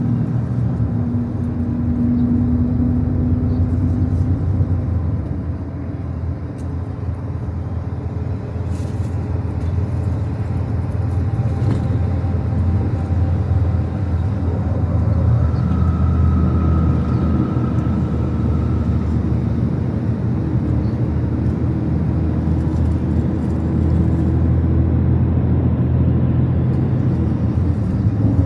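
Steady low rumble of a road vehicle on the move: engine hum and road noise, with a faint higher whine in the middle and occasional light ticks.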